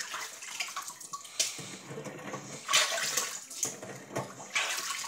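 Water splashing and running in a stainless steel kitchen sink as hands wash a long-handled bristle brush in it, uneven, with louder surges about halfway through and near the end.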